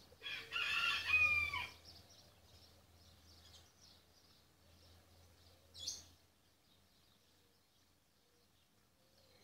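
A rooster crows once, a pitched call about a second and a half long just after the start, followed by faint bird chirps and a brief high chirp about six seconds in.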